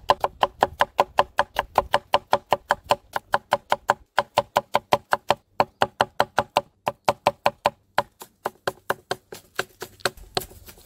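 Kitchen knife slicing green onion on a wooden cutting board: a quick, even run of knocks, about five a second, with two short pauses and a stop shortly before the end.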